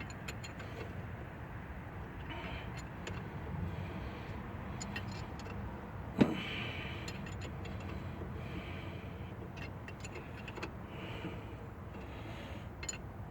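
Light metallic clinks and scraping of hand tools and fasteners being worked on an engine's intake manifold, with one sharp knock about six seconds in.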